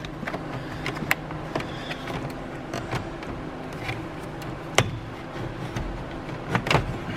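Scattered sharp clicks and knocks from hand tools and car interior parts being worked on, a few seconds apart, over a steady low hum.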